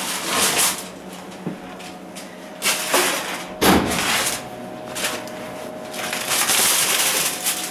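Aluminium foil crinkling and rustling over a roasting tin being handled in oven gloves, with a clunk about halfway through as the tin is set down on a wooden chopping board. The crinkling is densest near the end as the foil is pulled open.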